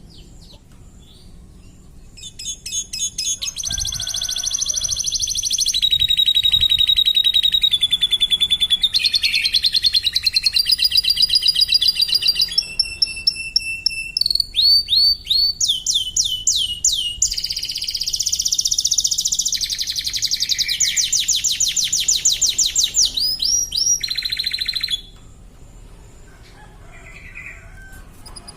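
Domestic canary singing a long song of rapid trills and quickly repeated high notes, switching phrase every second or two. The song stops abruptly near the end, leaving a few faint chirps.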